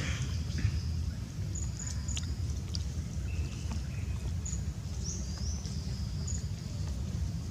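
Outdoor ambience: a steady low rumble with short, high-pitched chirps scattered through it and a few brief calls about three to four seconds in.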